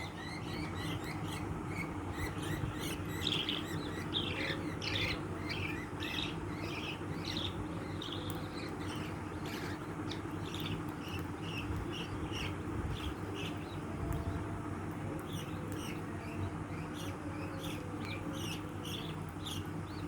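Small birds chirping and squawking in quick, repeated short calls, busiest in the first half, over a steady low hum.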